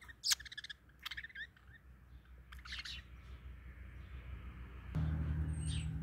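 Budgerigars chirping: several short, sharp chirps in the first three seconds. A low steady hum comes in about five seconds in.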